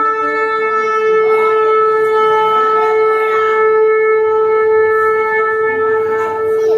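Shofar blown in one long, steady blast on a single note.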